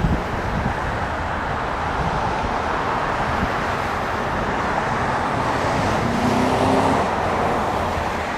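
Steady road traffic noise, swelling about six seconds in as a vehicle passes.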